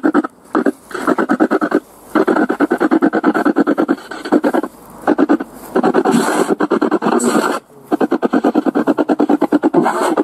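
Spirit box sweeping through radio stations: rapid, choppy bursts of static and broadcast fragments from a small speaker, broken by several brief dropouts. Near the end comes a fragment that the investigators take for the word "lie".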